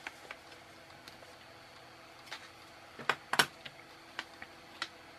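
Small sharp clicks of side cutters snipping component leads on a circuit board and of the board and tools being handled, loudest in a quick cluster about three seconds in, over a faint steady hum.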